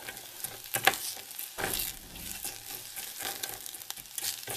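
Rice with garlic and parsley sizzling in hot olive oil in a stainless steel saucepan while it is stirred with a silicone spatula, which scrapes and taps against the pan. There is a sharp knock about a second in.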